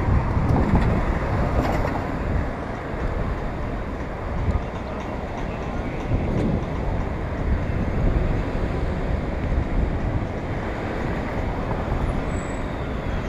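City road traffic going by, heard as a steady rumble of passing cars, mixed with low wind rumble on a bicycle-mounted action camera's microphone.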